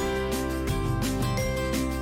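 Background music: guitar-led song with a steady beat.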